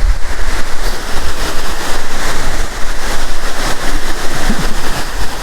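Small waterfall running: a steady, loud rush of falling water with a deep rumble underneath.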